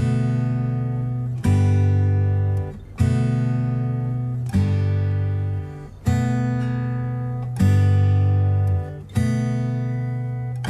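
Background music: an acoustic guitar strumming slow chords, a new chord about every second and a half, each left to ring and fade.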